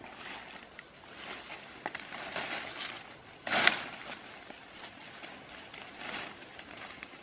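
Leaves and undergrowth rustling and swishing as a person pushes through dense forest brush on foot, in repeated swells. About three and a half seconds in comes a single louder crash of foliage, as a stick is swung or pressed into the plants.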